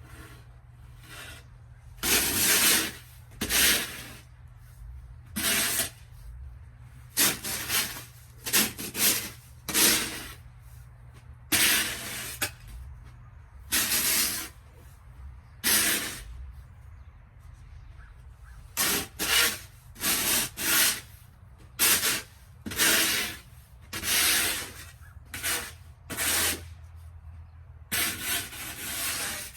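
Snow being scraped: about two dozen short rasping strokes at an uneven pace, with gaps between them.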